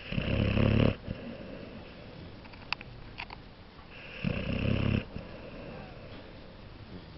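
Dog snoring in its sleep: two snores, each a little under a second long, about four seconds apart.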